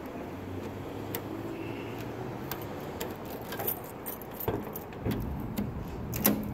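A ring of keys jingling and clicking against the trunk lock and chrome handle of a 1954 Ford Crestline as the key is put in and turned to open the trunk. A louder click comes near the end.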